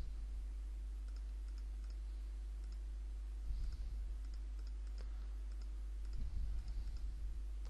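Faint, scattered computer mouse clicks over a steady low electrical hum, with two short, soft low rumbles in the middle and near the end.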